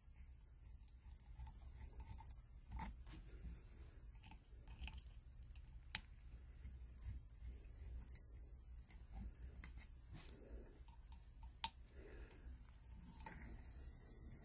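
Faint scattered small metal clicks as a hex key loosens the tiny 2-56 socket-head cap screws of a model engine's flywheel bushing, with a couple of sharper clicks along the way.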